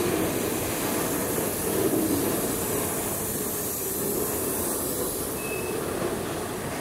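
Freight train of auto carrier cars rolling past, a steady rumble of steel wheels on rail, with a brief faint wheel squeal about five and a half seconds in.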